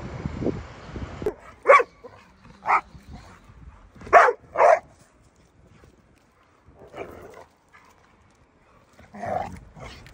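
A pit bull-type dog barking in single barks: four sharp barks in the first few seconds, the last two close together, then two softer barks spaced further apart.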